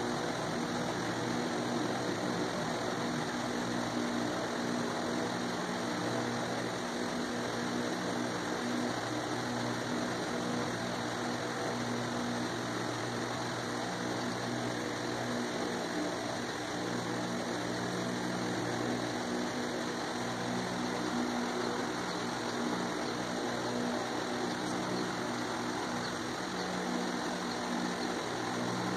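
A steady low mechanical hum over a constant noise haze, dipping briefly a couple of times.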